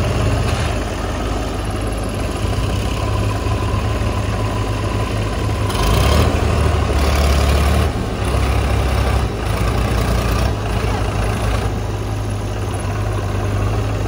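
Sonalika DI-42 RX tractor's diesel engine idling steadily, growing briefly louder and rougher about six seconds in.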